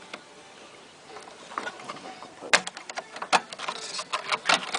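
Irregular clicks and knocks of a small LCD display board being pried loose from its plastic clips and mount. The sharpest clicks come about two and a half and three and a half seconds in.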